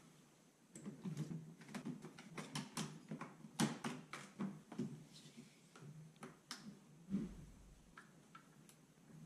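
Irregular sharp clicks and light knocks of hand tools and parts being handled during disassembly, with a dull low bump about seven seconds in.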